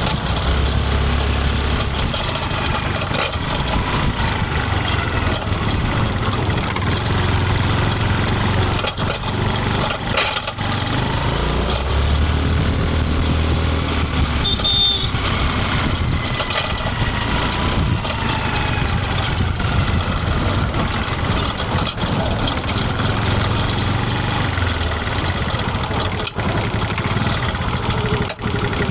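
Honda Activa scooter's single-cylinder four-stroke engine running continuously, its speed rising and falling several times. A brief high tone sounds about halfway through.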